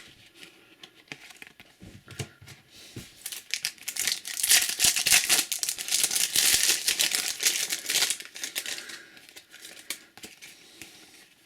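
Plastic wrapper of a trading-card packet being torn open and crinkled, a dense crackly rustle for several seconds from about three and a half seconds in, then dying down.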